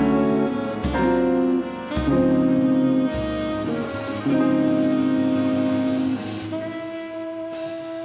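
Jazz big band, saxophones and trumpets, playing full sustained chords, with sharp ensemble accents about once a second over the first three seconds. A single high note is held over a softer band near the end.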